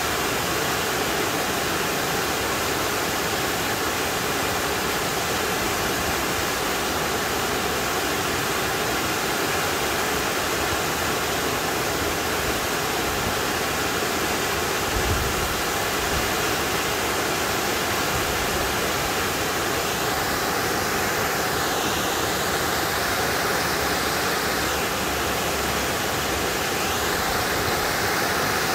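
Shequaga Falls, a tall waterfall partly sheathed in ice, pouring with a steady, even rush of falling water.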